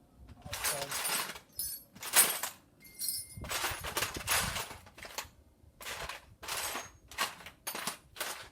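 Small 10 mm nuts being run down onto the radiator fan's mounting studs with a power driver, in about ten short rattling bursts with brief pauses between.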